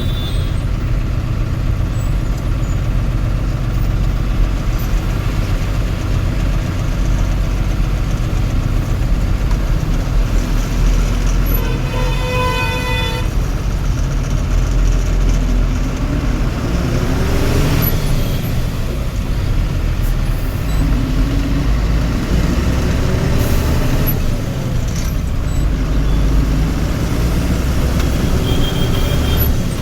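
Low, steady rumble of a heavy vehicle's engine running in road traffic. A vehicle horn sounds once, about twelve seconds in, for just over a second.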